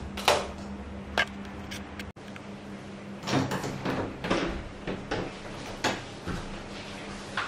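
A switch clicks, then clicks again about a second later, over the low hum of a Panasonic FV-25TGU2 10-inch ceiling exhaust fan; the hum drops away sharply about two seconds in. From about three seconds in comes a string of irregular clacks and knocks.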